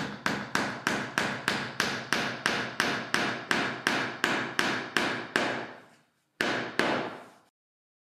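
Small hammer driving a small nail into the wooden frame of an old cupboard door panel: quick, even taps, about three a second, then a short pause and one final tap.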